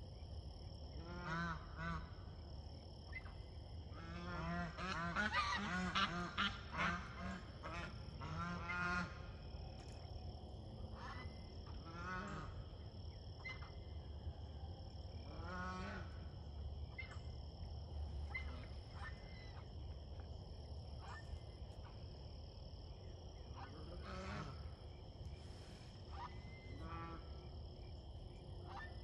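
Domestic geese honking during a fight at a nest, as a gander attacks a goose sitting on it. A loud run of rapid honks comes about four to nine seconds in, followed by scattered single calls.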